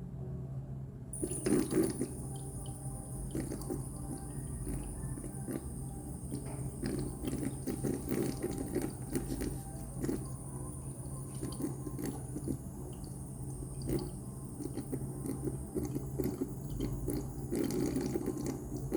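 Anti-gravity water-drop humidifier running: water dripping and splashing into its basin over a steady low hum, with a thin high whine that comes in about a second in.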